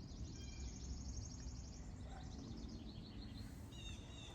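Wild songbirds singing faintly: a rapid high trill of quickly repeated notes, then a second, lower trill, and a few short chirps near the end, over a steady low outdoor rumble.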